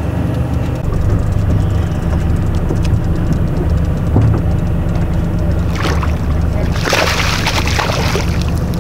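Boat engine idling with a steady low hum. About six seconds in, a fish splashes hard at the surface as it is scooped into a landing net.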